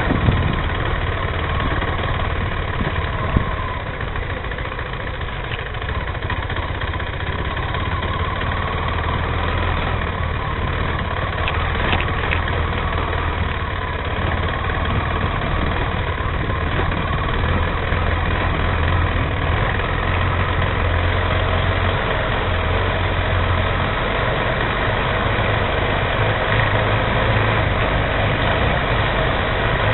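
Motorcycle engine idling steadily, a low, even hum with no revving.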